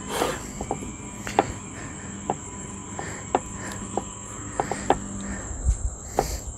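Insects trilling in one steady high-pitched tone, with scattered light taps and knocks as hands press and spread pizza dough on a wooden cutting board.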